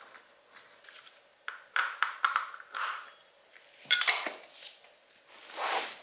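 Metal tools and parts clinking and pinging in a series of light knocks, followed near the end by a short rush of noise that swells and fades.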